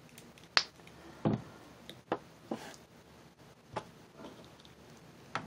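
Light, irregular clicks and taps from handling a plastic action figure and its parts, about six in all.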